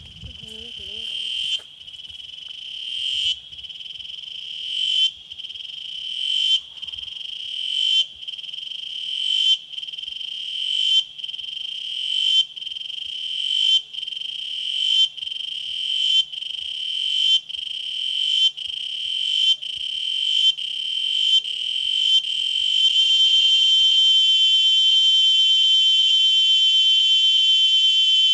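Cicada singing: a shrill buzz that swells in repeated phrases, each cutting off suddenly, the phrases coming faster and faster until, past the middle, they merge into one continuous loud drone.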